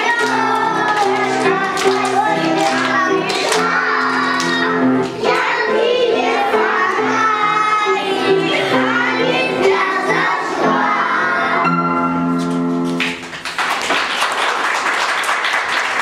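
A group of young children singing a song together over an instrumental accompaniment. About thirteen seconds in, the music stops and clapping takes over.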